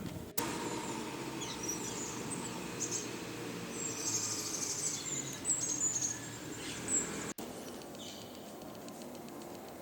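Outdoor city ambience with small birds chirping in short high calls over a steady background hum, broken by two abrupt cuts, one near the start and one about three-quarters of the way through.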